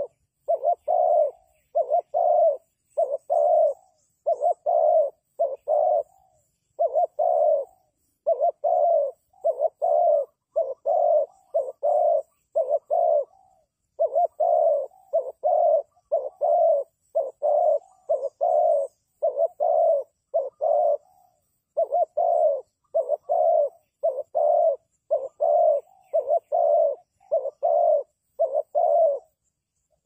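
Spotted dove cooing: a steady run of short, low coos, one every half second or so, broken by brief pauses about every seven seconds.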